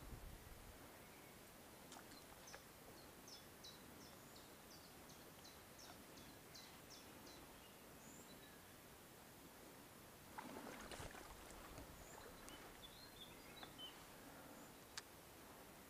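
Quiet outdoor ambience with a small bird singing a quick series of about a dozen short high chirps. About ten seconds in comes a brief rustle, followed by a few more chirps.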